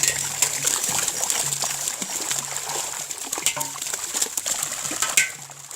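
Pond water splashing and trickling in many small, quick splashes and drips, as in a cast net being worked in the water.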